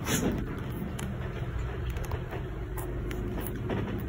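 A steady low background rumble, like distant traffic, with faint scattered clicks and rustles over it and a slightly louder rustle right at the start.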